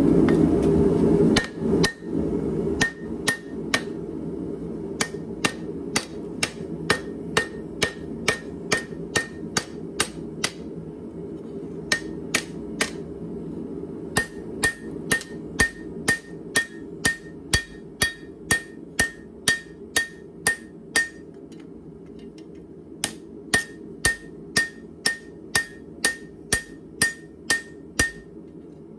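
Hand hammer striking hot leaf-spring steel on a steel anvil, about two blows a second, in runs broken by short pauses, each blow leaving a brief ring: forging the Nessmuk blade thinner and flatter. A steady rushing noise runs beneath, louder for the first second and a half, from the gas forge burner.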